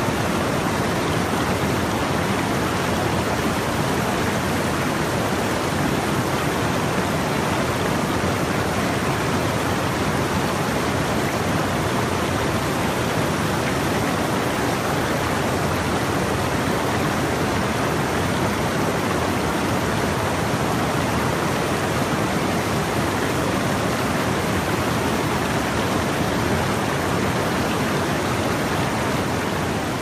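San Marcos River water rushing over a low rock-ledge waterfall and churning into white water below: a steady, even rush with no let-up.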